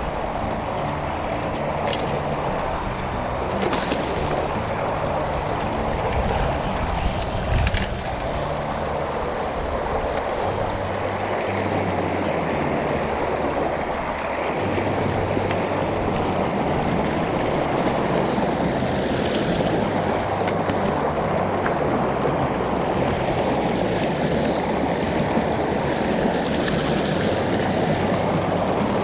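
Small upland river rushing steadily over boulders and stones. Wind buffets the microphone during the first half, and there are a few light knocks in the first eight seconds.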